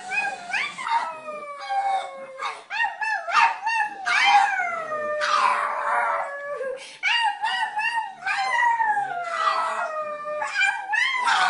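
Pug howling in a series of long, wavering calls that each slide down in pitch.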